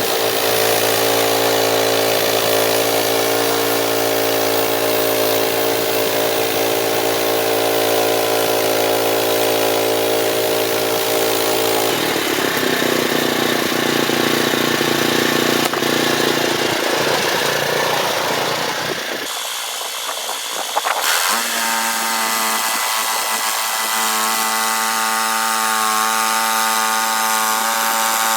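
Small gas engine of a Frontier OS27 portable band sawmill running steadily, its pitch dropping about twelve seconds in, then a brief dip and a sharp click about twenty seconds in before it settles at a higher steady pitch.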